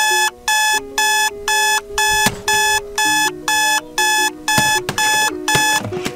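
Digital bedside alarm clock going off: short, identical electronic beeps at about two a second, stopping near the end.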